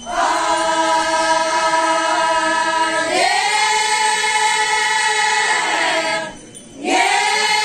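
A group of Changsa women singing a traditional cultural song together in long held notes. The pitch steps up about three seconds in, the singing breaks off briefly near six seconds, then a new held phrase begins.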